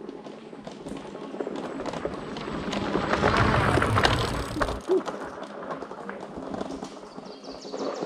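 Fat-tyre electric bike riding past on a dirt trail: tyres rolling over the dirt grow louder to a close pass with a low rumble about three to four seconds in, then fade as it rides away.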